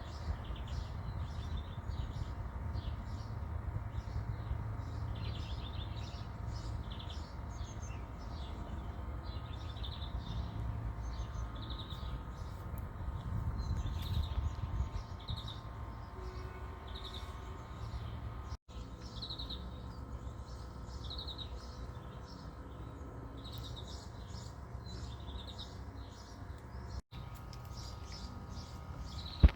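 Small birds chirping and twittering in many quick, high, repeated calls over a steady low rumble. The sound drops out for an instant twice.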